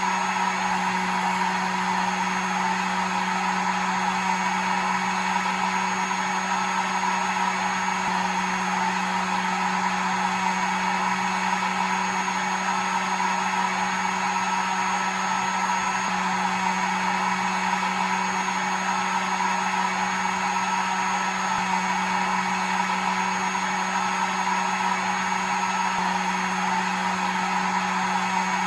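Hair dryer running steadily: an even whooshing blow with a low hum under it and a thin high whine above.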